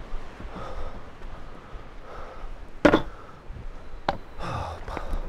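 A longboard dropped onto a tarmac path, landing with one sharp, loud clack about three seconds in. A lighter knock follows about a second later as the rider steps onto the deck and starts rolling.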